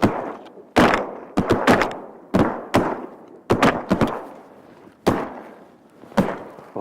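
A rapid volley of shotgun blasts from several hunters firing at once on a flock of eider ducks: about a dozen shots, some in quick doubles, each trailing off in an echo.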